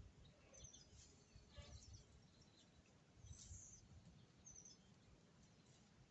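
Near silence: faint outdoor background with a few short, high bird chirps.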